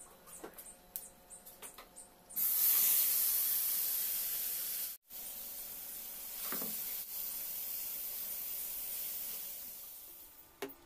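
Turmeric-coated squid frying in hot oil in a non-stick pan. A few light taps, then a sudden loud sizzle about two seconds in as the squid meets the oil. It fades, breaks off briefly, and comes back as a steadier, quieter sizzle that dies away near the end.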